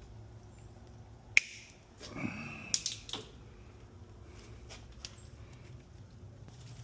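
Wire cutters snipping electrical wire: one sharp snip about a second and a half in, then a few lighter clicks and rustles of wire being handled around the three-second mark.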